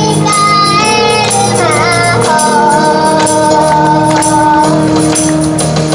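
A girl singing a song over a pop backing track with a steady beat and a tambourine-like shimmer; near the middle she holds one long, wavering note.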